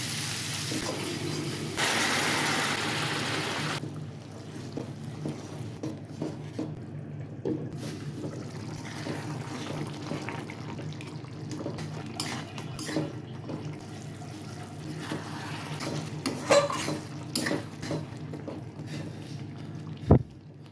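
Frying food sizzling in a pan for the first few seconds, cutting off suddenly about four seconds in. Scattered clinks and knocks of kitchen utensils and dishes follow over a low steady hum, with one sharper knock near the end.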